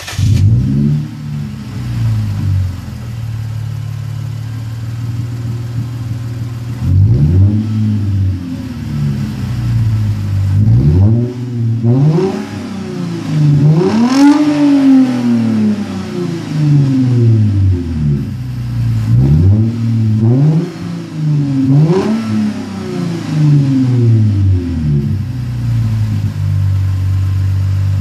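Lexus IS250's 2.5-litre V6 with the mufflers deleted (straight-piped exhaust), just started and revved in a string of short throttle blips, the biggest about halfway through. It settles to a steady idle near the end.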